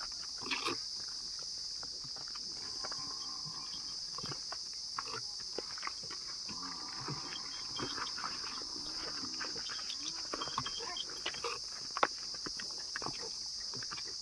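A herd of water buffaloes walking along a dirt path, with many irregular knocks and scuffs from their hooves and occasional low animal calls, over a steady high buzz.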